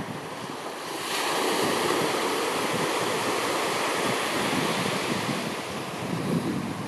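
Sea surf washing on the shore, with wind buffeting the microphone in a low gusty rumble; a broad hiss swells about a second in and eases off near the end.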